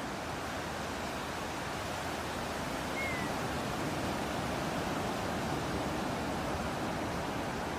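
Steady rushing wash of ocean surf and breeze that swells slightly about three seconds in. A single faint, short bird chirp sounds at the same moment.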